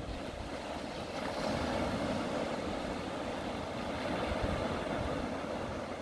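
Steady wash of small waves breaking and running over a shallow sandy beach, with an uneven low rumble underneath.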